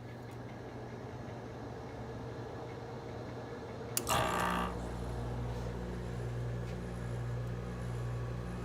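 Friedrich Kühl window air conditioner starting up: a low steady hum, then about four seconds in a click and a brief rush as its LG rotary compressor kicks on. It settles into a louder, deeper steady hum.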